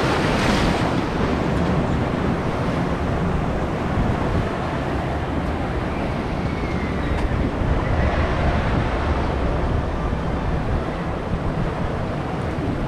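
Water rushing and churning around a raft on an Intamin river rapids ride, with wind buffeting the microphone; a brighter splash comes about half a second in.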